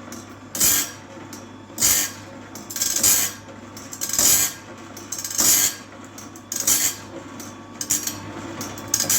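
Sawmill band-blade sharpener grinding the blade tooth by tooth: a short, loud grinding rasp about every 1.2 seconds as the wheel dips into each tooth and gullet, over the steady hum of its motor.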